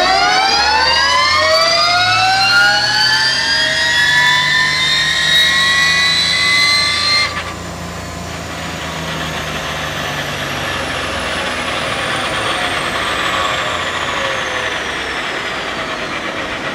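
Electric drive motor of the SCR1 race car whining on a chassis dyno during a full-power pull: the whine climbs steeply in pitch and levels off, then cuts off suddenly about seven seconds in. A fainter whine then falls slowly in pitch as the motor, wheels and dyno rollers spin down.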